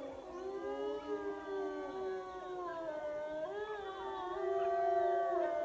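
Pack of wolves howling together, several overlapping voices at different pitches gliding up and down, swelling loudest shortly before the end.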